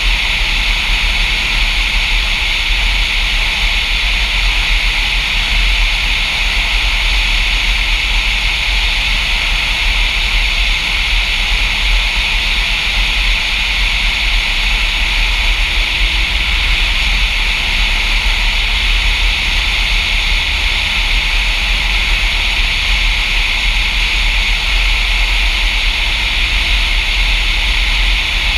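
Steady rushing wind noise from airflow buffeting a camera mounted outside on the wing of a Diamond DA-40 light aircraft in flight: a deep rumble under a constant hiss.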